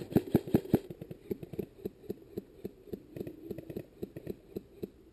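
Airsoft rifle shots: a rapid string of sharp cracks, about five a second and loudest in the first second, then softer, more spaced shots until shortly before the end.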